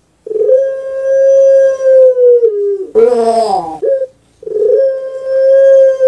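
Puter pelung dove (Streptopelia risoria) singing its long coo: a steady drawn-out note held about two seconds, then a loud short harsh note falling in pitch about three seconds in, and after a brief pause the long note starts again.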